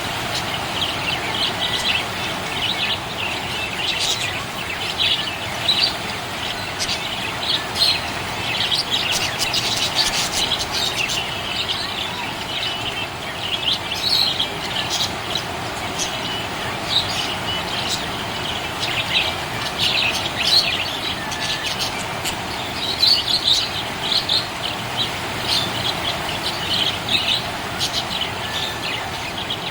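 Budgerigar chirping and warbling: a continuous run of short, high chirps, with louder bursts here and there, over a steady background hiss.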